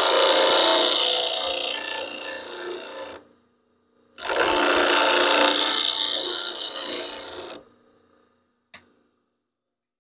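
Bench grinder wheel grinding the bevel of a steel roughing gouge to resharpen its edge: two passes of harsh grinding, each about three to four seconds long, the first already under way at the start and the second beginning about four seconds in. A brief click follows near the end.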